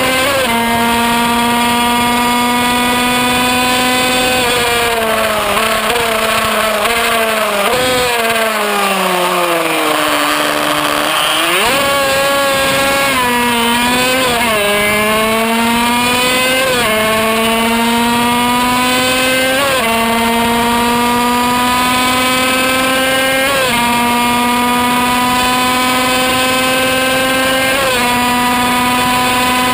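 High-revving 50cc two-stroke racing engine of a Kreidler Van Veen, heard on board. About four seconds in it winds down with a few downshifts as the bike slows for a corner, then it accelerates hard and shifts up through the six-speed gearbox. Each upshift is a sharp drop in pitch followed by a rising whine.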